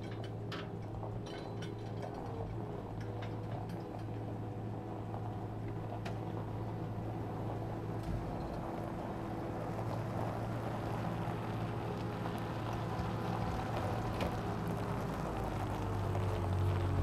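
An engine idling steadily, with a few sharp knocks in the first two seconds. About a second before the end, the engine speeds up.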